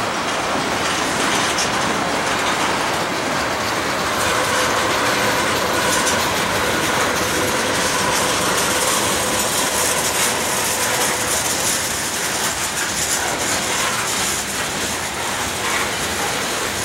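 Freight train's tank cars and covered hopper cars rolling past, their steel wheels clacking steadily on the rails.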